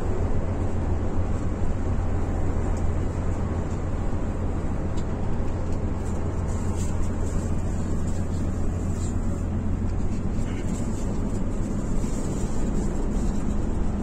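Intercity coach running at road speed, heard from inside the cab: a steady low engine drone with tyre and road noise.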